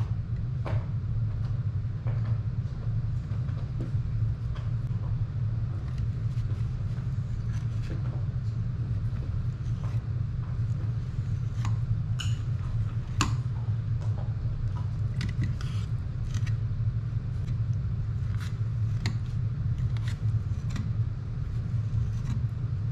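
A steady low hum with scattered light clicks and ticks as a fillet knife cuts through raw redfish fillets, its blade tapping the aluminum sheet pan beneath.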